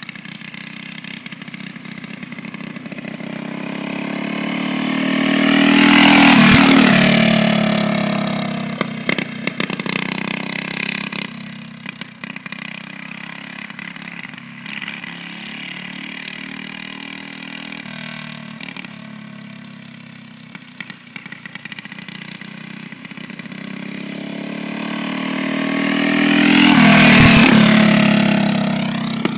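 Go-kart engine passing close by twice, about twenty seconds apart: each time it swells, drops in pitch as it goes past, and fades away. Between the passes, quieter engine sound carries from elsewhere on the track.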